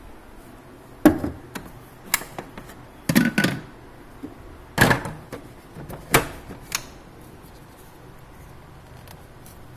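A series of sharp knocks and clicks, about a second apart, from a steel mixer-grinder jar and its lid being handled and set on the grinder base; the grinder motor is not running.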